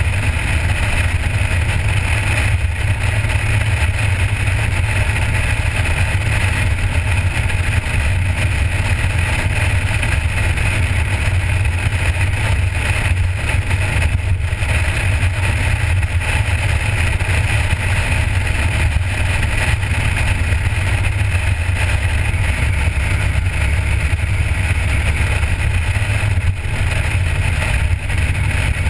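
A 1977 Corvette's V8 cruising steadily, a low rumble under wind and road noise.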